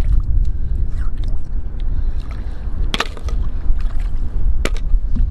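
Wind buffeting the microphone with a steady low rumble, and shallow water moving, as a hand gathers clams from wet sand; two sharp clicks, about three and four and a half seconds in.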